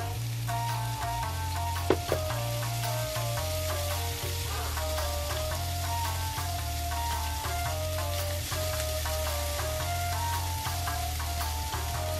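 Bitter melon slices and corned beef hash sizzling in a frying pan as they are stirred, with one sharp knock about two seconds in. Background music with a simple melody and a steady bass runs under it.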